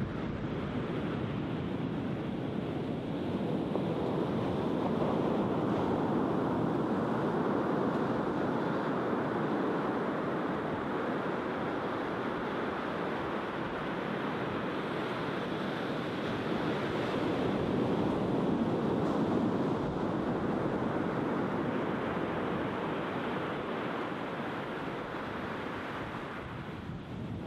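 Surf breaking on a sandy beach: a steady rush of waves that swells louder twice, once a few seconds in and again about two-thirds of the way through.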